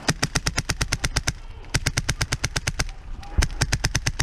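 Krytac airsoft rifle with a Wolverine Inferno Gen 2 HPA engine firing full-auto at about ten shots a second, in two bursts of just over a second each, with a third burst starting near the end.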